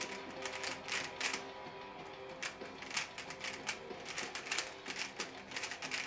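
Aolong V1 3x3 speed cube being turned fast by hand: rapid runs of plastic clicks and clacks as its layers snap round, coming in irregular bursts.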